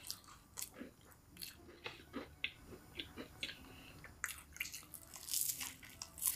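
A person chewing and crunching crispy fried chicken close to the microphone: a quick series of sharp crisp cracks, with a denser stretch of crunching about five seconds in.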